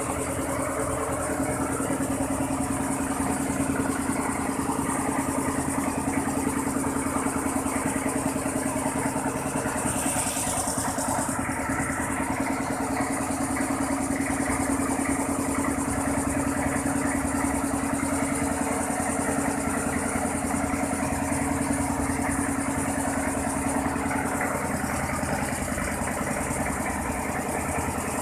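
Engine-driven rice mill running steadily with a continuous drone. A brief hiss about ten seconds in.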